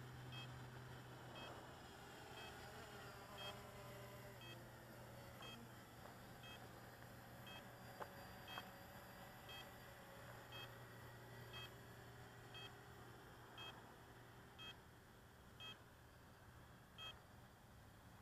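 Faint electronic beeping, short two-tone beeps about once a second, over a low steady hum.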